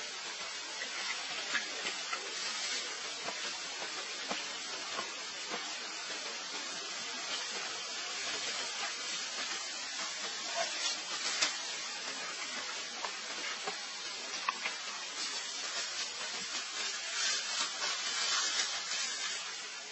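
Steady hiss with scattered faint clicks and crackles, a little louder and busier in the last few seconds.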